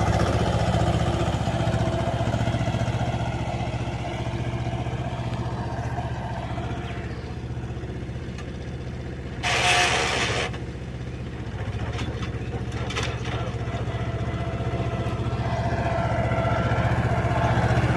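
Mahindra 24 HP mini tractor's diesel engine running steadily under load as it pulls a ridger through tilled soil. It fades toward the middle and grows louder again near the end. About halfway through there is a second-long burst of hiss.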